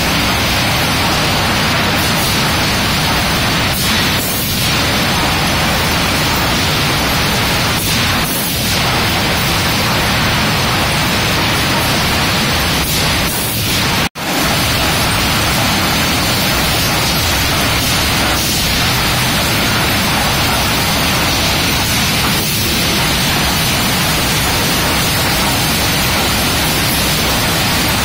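Sawmill machinery running, with a ring debarker and log conveyors: a loud, steady wall of noise with brief swells every few seconds. It drops out for an instant about halfway through, then carries on.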